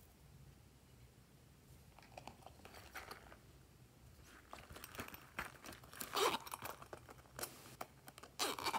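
Hands handling and squeezing silicone coin purses: scattered rubbery rustles and clicks that start about two seconds in and grow denser and louder in the second half, with a zipper being pulled open near the end.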